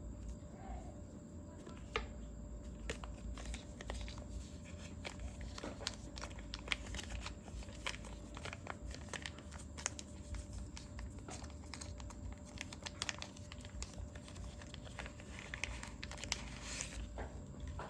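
Product packaging being handled and opened: crinkling and tearing, with many small clicks and knocks scattered throughout.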